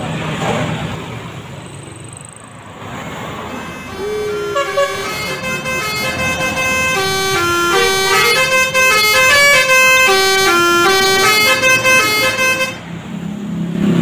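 A bus passes close by with engine and tyre noise. About four seconds in, a Basuri telolet multi-tone bus horn plays a quick stepped melody, several tones sounding together and changing pitch every fraction of a second. It breaks off shortly before the end.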